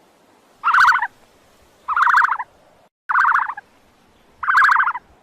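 A bird's warbling, gobble-like call repeated four times, each about half a second long and roughly a second apart.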